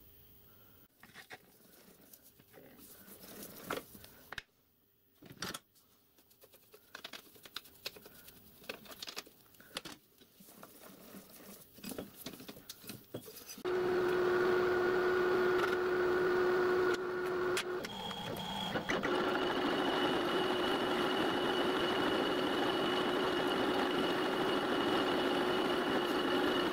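Scattered light metal clicks and knocks while a steel blank is set in the lathe's four-jaw chuck. About halfway through, the metalworking lathe starts and runs steadily with a steady hum. Its tone changes a few seconds after starting and then holds steady.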